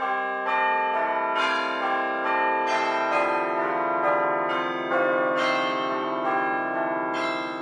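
Music of bell-like struck tones in a slow, even melody, about two notes a second, each note ringing on under the next.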